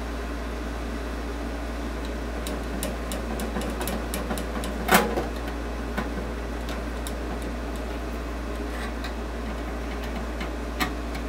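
Screwdriver turning a small screw that fastens a sheet-metal holder bracket to the side of a rework station's metal case: scattered light clicks and ticks, with one sharper click about five seconds in, over a steady low hum.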